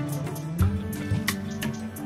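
Background music with a beat.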